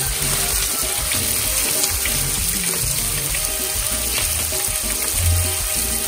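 Raw pieces of ray fish sizzling steadily in very hot oil in a skillet while a slotted spatula turns them.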